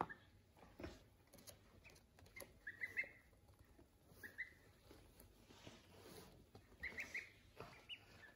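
Waterfowl chicks peeping softly: two quick runs of three or four high peeps, about two and a half and seven seconds in, with single peeps between, over faint scattered taps.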